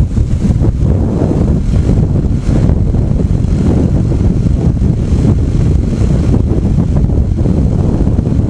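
Loud, steady wind buffeting on a motorcycle rider's action-camera microphone while riding at road speed, with the rumble of the ride beneath it.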